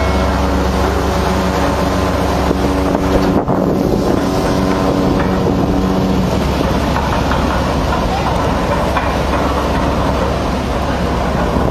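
Steady low rumble and hum of a ship's engine underway, with rushing water and wind on the microphone; the sound changes abruptly about three and a half seconds in, becoming mostly a noisy rush.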